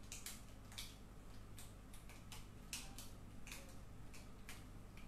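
Handwriting sounds: short, irregular scratchy strokes of a pen, about two or three a second, as a chart is written out by hand. A low steady hum runs underneath.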